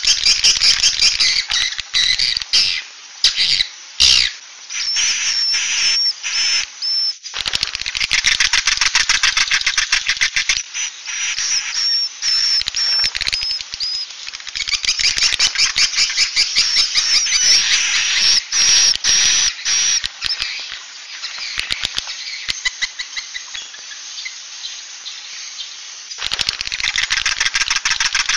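Swiftlet calls of the kind played as a roosting lure ('suara inap'): dense, rapid clicking chatter with short warbling whistled trills. It comes in loud stretches that break off and resume, with a quieter patch near the end.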